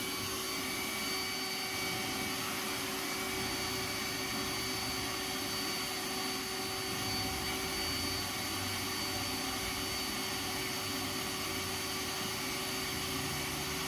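iRobot Roomba s9 robot vacuum running on a 1-inch shag rug: a steady motor and fan hum with a thin, constant whine. The robot is bogged down in the deep pile, struggling to free itself.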